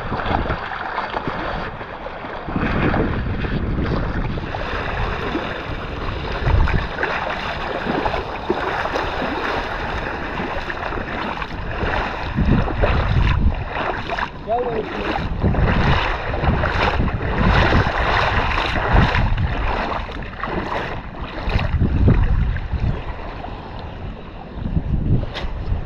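Wind buffeting the microphone in irregular low gusts over small waves lapping at the shore, with a few short clicks.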